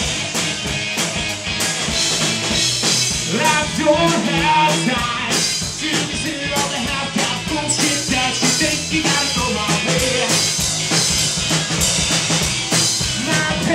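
Live rock band playing an instrumental passage at full volume: a drum kit with snare and bass drum, and electric guitars, with no singing.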